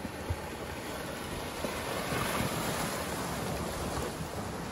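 Flash-flood debris plug, a mat of woody debris and muddy water, sliding over a dry gravel riverbed, heard as a steady rushing noise that swells a little about halfway through, with wind on the microphone.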